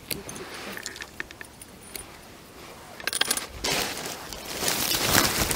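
Small sharp metallic clicks and clinks as a lure's hook is worked free of a perch's mouth. About three and a half seconds in, a louder stretch of rustling handling noise follows and grows toward the end.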